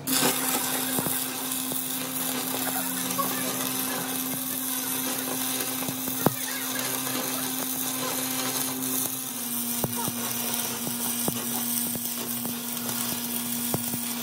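Handheld electric power tool running steadily on metal, its motor hum dropping slightly in pitch about nine seconds in, with a hiss and scattered clicks.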